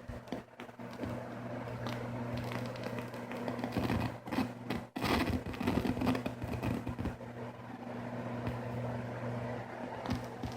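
Old Altec Lansing MX5021 computer speaker system making a fault noise: a steady electrical hum under irregular crackling, scratchy static, with a brief dropout about halfway through.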